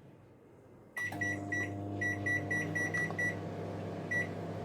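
Microwave oven switching on about a second in and running with a steady hum, while short high beeps sound over it again and again: keypad beeps as the time is entered.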